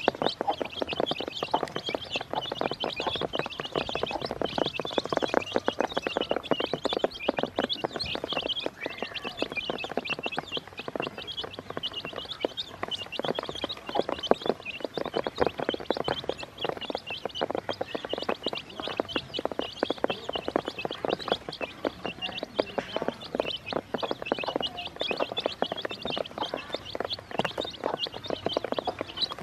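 A group of baby chicks peeping non-stop in many short, high-pitched chirps, over rapid, irregular tapping of their beaks pecking feed off a plastic basin.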